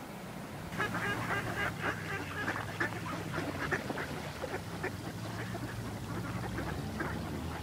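A flock of mallard ducks quacking, many short calls overlapping, starting about a second in.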